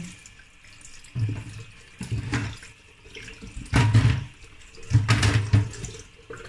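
Water running hard from a kitchen tap and splashing over mackerel steaks on a plastic cutting board, coming in uneven loud surges about four times.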